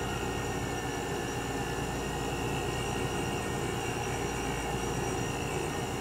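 Reciprocating R12 refrigeration compressor of an Excellence ERT-235 mini refrigerator running with a steady hum. The owner takes its sound as a sign that the system still holds its refrigerant charge.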